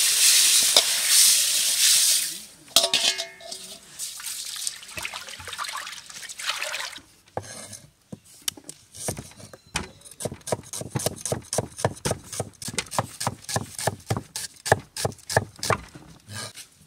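Rice grains poured in a stream into a pot of water to soak, a rushing pour that stops about two seconds in. Later a cleaver chops on a wooden board, sharp knocks at about four a second through the second half.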